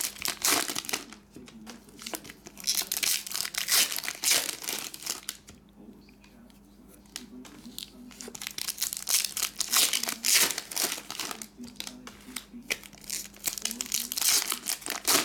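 Foil wrappers of Upper Deck Marvel Beginnings trading-card packs crinkling and tearing as the packs are ripped open by hand, in repeated bursts with a short quieter pause about six seconds in.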